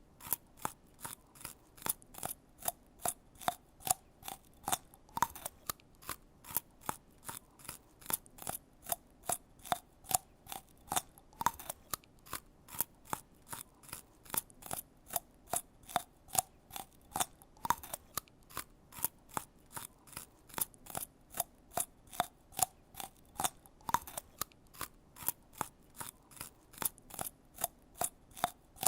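A long, even run of crisp snipping clicks, about three a second, like scissors cutting.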